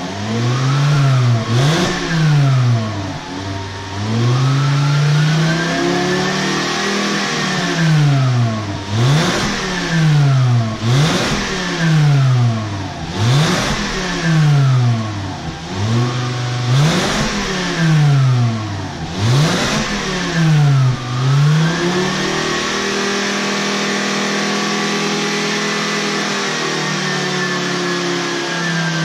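MK5 VW Jetta's 2.5 L five-cylinder engine revved a dozen or so times in quick succession, each rev climbing and falling back, then held at a steady speed for the last quarter. It is heard through an exhaust with the rear muffler deleted and chrome dual tips with built-in resonators.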